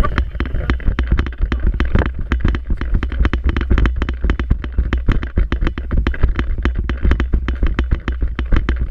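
Rapid, irregular sharp clicking and snapping of airsoft guns firing during play, several shots a second, over a steady low rumble of wind and handling noise on a body-worn action camera.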